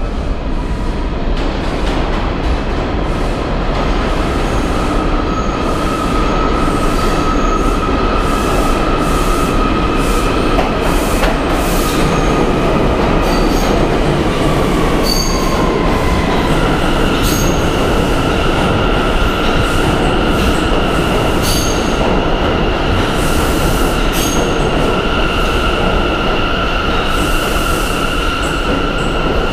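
An eight-car train of R179 subway cars running along the platform track: a steady rumble of wheels on rail with a high, continuous wheel squeal. Partway through, the squeal drops in pitch and then settles on a higher tone, with scattered sharp clicks throughout.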